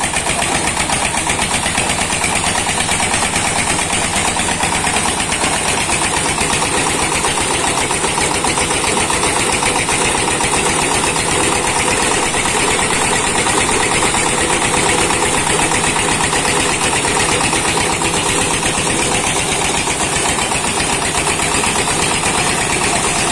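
Small diesel engine driving a paddy threshing machine, running steadily under load with a fast, even knock while the threshing drum strips rice fed into it.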